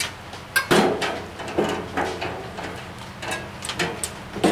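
Steel tool-cart parts being handled, with a series of sharp metallic knocks and clunks at uneven intervals. The loudest comes about three-quarters of a second in.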